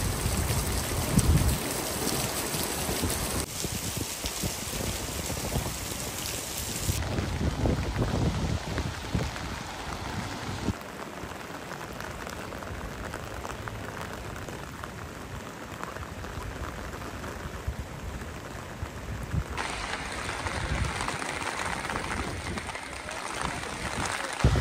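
Rain falling steadily, a hiss of raindrops with low rumbles at times; the sound changes abruptly several times.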